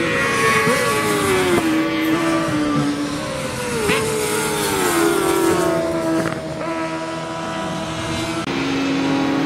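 Racing sidecar outfits' engines at high revs going past on the track. The pitch falls in several sweeps and sudden steps as the machines go by and change gear.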